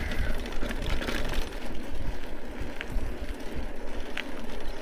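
Mountain bike rolling over a rough, broken concrete lane: tyre rumble with irregular rattling and clatter of the bike over the bumps, and wind on the microphone. Two brief sharp ticks, one about three seconds in and one near the end.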